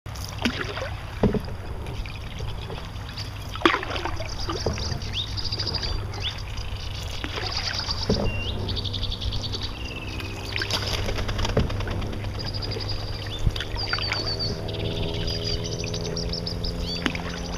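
Canoe paddle strokes dipping and splashing in calm water, with small birds singing and chirping again and again. A steady low drone joins about halfway through.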